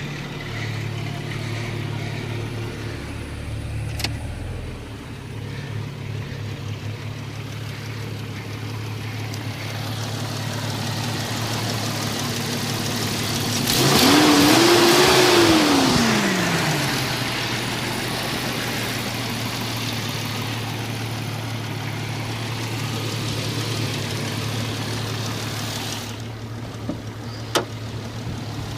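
Jeep Cherokee XJ engine running steadily at low revs, with one rev about halfway through that climbs and falls back to idle. There are a couple of sharp clicks.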